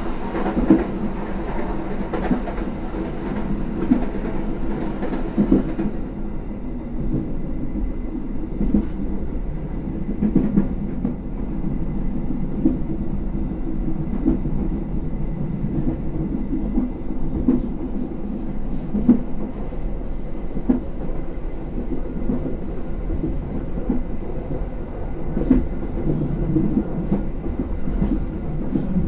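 Argo Semeru passenger train running on the track: a steady rumble of wheels on rail with occasional sharp clacks. A faint high wheel squeal comes about twenty seconds in, on a winding section of line.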